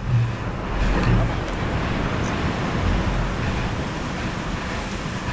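Plastic sit-on-top kayak hull rumbling and scraping as it is dragged across wet sand, over the steady wash of surf and wind on the microphone.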